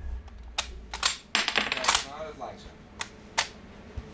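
Mauser K98 bolt-action rifle being cycled after a shot: a run of sharp metallic clicks as the bolt is opened, drawn back and closed. A spent brass case ejects and rings briefly as it drops, about a second and a half in.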